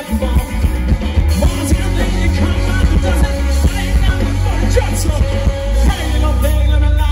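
A live rock band with saxophone and trumpet playing loud, with electric guitar, drums and heavy bass.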